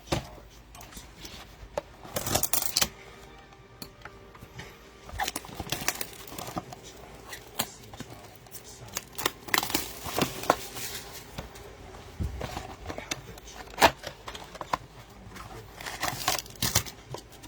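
Irregular rustling, crinkling and tearing with sharp clicks and taps: sealed trading-card packs are being torn open and the cards handled and tapped together.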